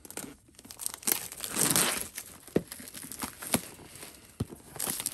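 A power supply's cardboard retail box and its packaging being opened by hand: crinkling, scraping and tearing, loudest about a second in, followed by a few sharp taps and clicks.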